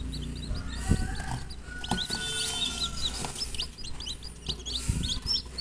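Newly hatched kampung chicks peeping: a rapid, continuous run of short high-pitched chirps from several chicks, just out of the shell and still cold, seeking a brooding hen. A couple of soft knocks come about a second in and near the end.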